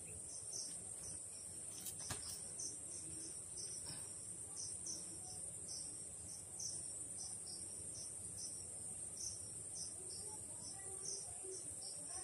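Crickets chirping faintly in the background: a constant high trill with shorter chirps repeating about three times a second. A couple of faint clicks sound about two seconds in.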